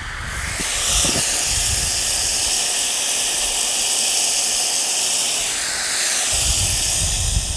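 Garden hose spray nozzle spraying water into a plastic 5-gallon bucket, filling it: a steady hiss of spray.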